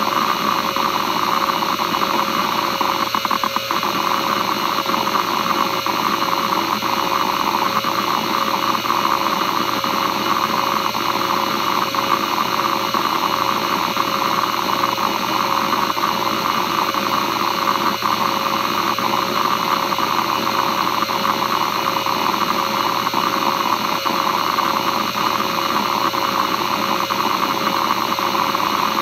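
Western Digital Caviar 22500 3.5-inch hard drive (5200 RPM, Nidec spindle motor) running a random seek test: the heads chatter in a continuous stream of rapid seek clicks over the steady tone of the spinning platters.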